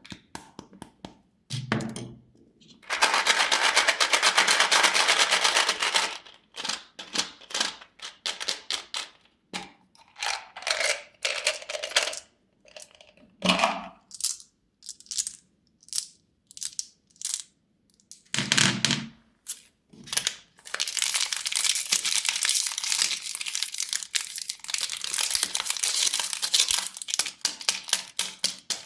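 Plastic candy wrappers being crinkled and torn open as sweets are unwrapped: two long stretches of dense crinkling, with many short sharp crackles between them and a few fuller rustles.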